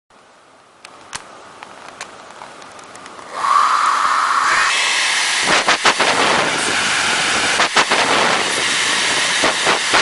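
A hair dryer switched on about three seconds in, blowing with a steady hiss and a whine that steps up in pitch shortly after. A few faint clicks come before it starts, and sharp crackles cut through it a few times.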